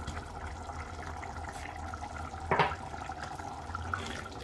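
Chicken and vegetable stew simmering steadily in a pot, with one short knock about two and a half seconds in.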